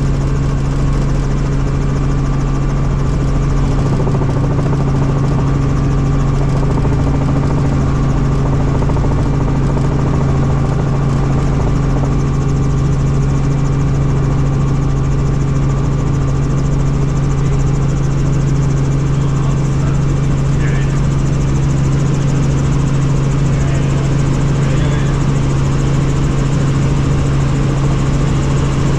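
Helicopter in flight: a steady drone of engine and rotor, with a strong low hum that holds one pitch.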